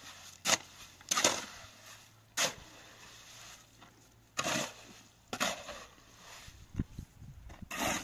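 Steel shovel scraping and scooping through a gravel and cement mix in a metal wheelbarrow and on the ground: about half a dozen short, gritty scrapes at uneven intervals.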